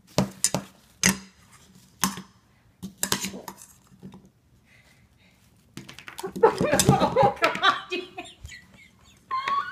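A dog eating from a dish at a table, with several sharp clinks and knocks of dishware and cutlery in the first three seconds or so. From about six seconds in, people's voices.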